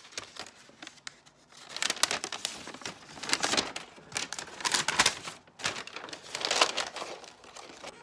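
A folded paper instruction leaflet being unfolded and handled, crinkling and rustling in repeated bursts that start about two seconds in.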